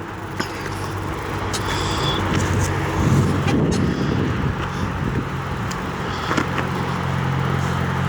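A vehicle engine running as it moves slowly along, a steady hum that shifts in pitch about three seconds in and grows a little louder.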